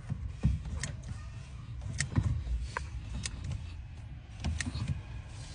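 Scattered light clicks and knocks of hand work on a Ford Figo's steering column as a new steering cross joint is fitted, about half a dozen sharp separate strikes over a low background rumble.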